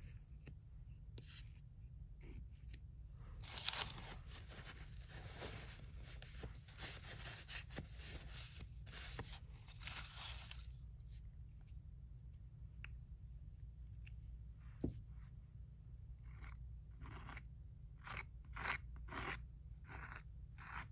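A paper towel crinkles and rustles for several seconds as paint is wiped off the fingers. Later come short scrapes of a plastic palette knife spreading thick stencil paste across a tile.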